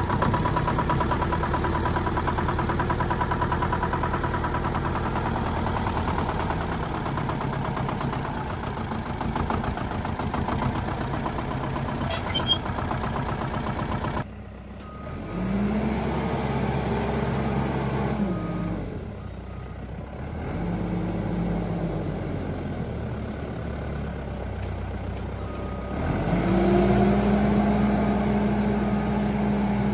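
A backhoe loader's diesel engine running steadily. About halfway through the sound changes abruptly, and the engine then revs up and holds under load three times.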